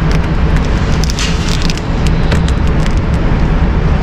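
Steady low rumble with scattered clicks and rustles, like a holster and gear being handled close to the microphone.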